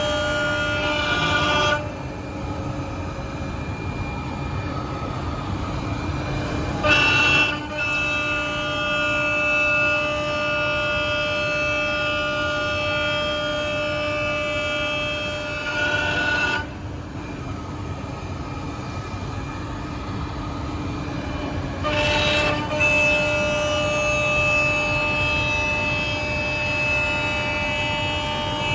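Spindle of a Woodmaster WM-2800-S2R4 CNC router milling a groove along a wooden board, a steady whine of several tones over a rough cutting noise. It drops away and comes back a few times as the cut goes on, with short louder bursts about 7, 16 and 22 seconds in.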